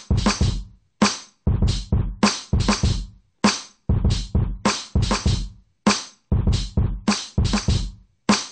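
Programmed drum loop of kick, snare and hi-hat samples from a Native Instruments Battery 4 urban drum kit, playing back through Maschine at 98 BPM. The short one-bar pattern repeats over and over, with deep kick thumps under crisp snare and hat hits.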